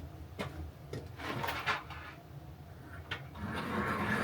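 Pencil scratching at a workbench: a few light taps, then a scratchy rub that starts about three and a half seconds in and keeps going.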